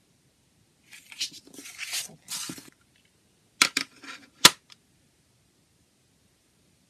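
A paper CD booklet rustles and slides against a plastic jewel case for about two seconds. Then come a few sharp plastic clicks as the case is closed, the last one, about a second later, the loudest.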